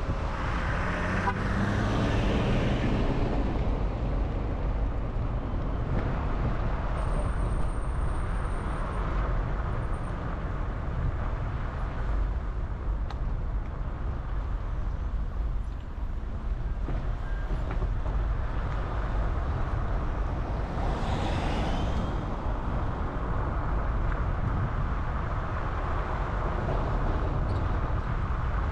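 Steady rumble of a car driving along a road: engine and tyre noise. Something louder swells and passes near the start and again about three-quarters of the way through.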